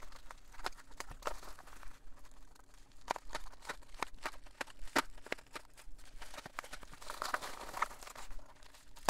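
Plastic bubble wrap crinkling and crackling as it is cut with scissors and pulled open by hand: a run of many small sharp crackles, busiest near the end.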